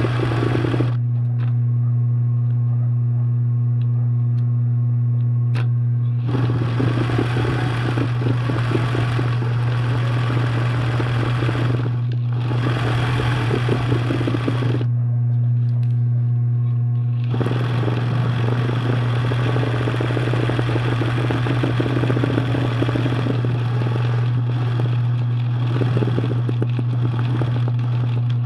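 A steady low hum, with long stretches of rustling, scraping noise over it that stop and start a few times.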